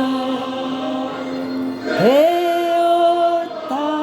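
A singer sustaining long notes of a Korean gospel song. One note is held, then about two seconds in the voice slides up sharply into a second held note, and a new note begins near the end.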